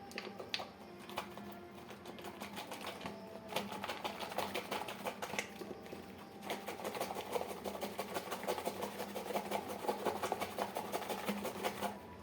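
A fast, steady run of light clicks from kitchen utensils, likely a spoon working against a bowl as spices go into the cutlet mixture. A few scattered clicks come first, and the rapid clicking starts about three and a half seconds in.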